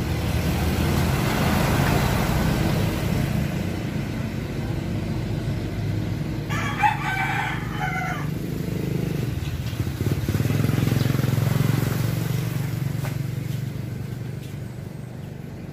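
A rooster crows once, a call of under two seconds about six and a half seconds in, over a steady low motor rumble that swells twice as vehicles pass.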